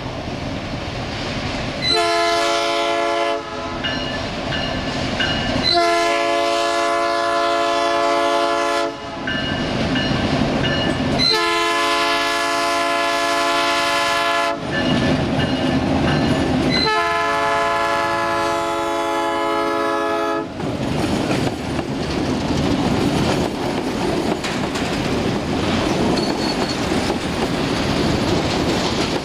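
Diesel freight locomotive sounding its multi-tone air horn four times, one short blast followed by three long ones, over the rumble of the passing train. After the horn stops, the freight wagons rumble and clatter past.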